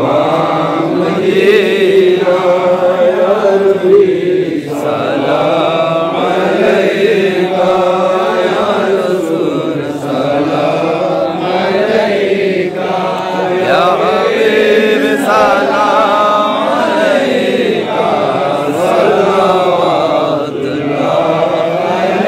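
Men's voices chanting together in a slow melody that rises and falls in phrases of a few seconds each.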